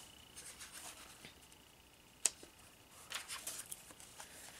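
Quiet room with a faint steady high-pitched whine, a single sharp click about two seconds in, and soft rustling of paper book pages a second later.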